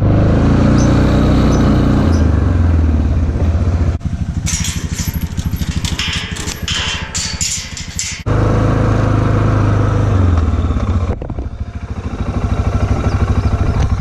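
Engine running steadily close by. From about four seconds in, a loud rattling clatter runs over it for about four seconds.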